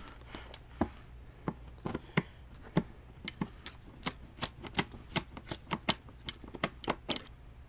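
A string of short, sharp metallic clicks from hand tools working the bolts on a 1996 Kawasaki KDX200 dirt bike. They are irregular at first, then settle into a steadier run of about three clicks a second for the second half.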